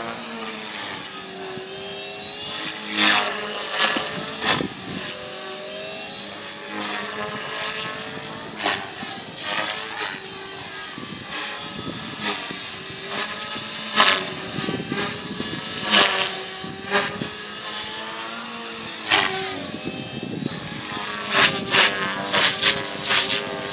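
450-size electric RC helicopter flying overhead: a steady motor and rotor whine that slowly rises and falls in pitch as it manoeuvres. Short loud rushes of noise break in every few seconds.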